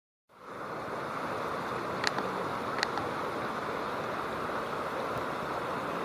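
Steady rush of flowing river water, fading in at the start, with two short sharp ticks about two and three seconds in.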